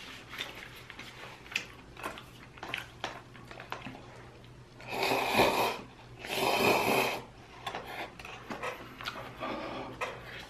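A person slurping instant noodles from a paper cup: two long, loud slurps about five and six and a half seconds in, with faint clicks scattered through the rest.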